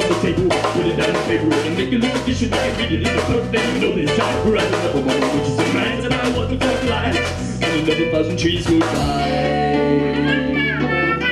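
Live folk band music: strummed acoustic guitars and a drum kit keeping a quick, even beat under singing. About nine seconds in, the beat drops away, leaving held guitar chords and voices.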